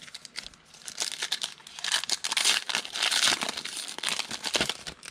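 Plastic wrapper of a football trading card pack being torn open and crinkled, a dense crackle for most of the few seconds.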